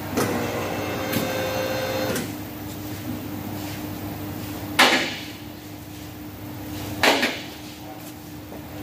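Two-post hydraulic car lift being readied to lower: its electric pump motor whines for about two seconds, then two loud clanks about two seconds apart.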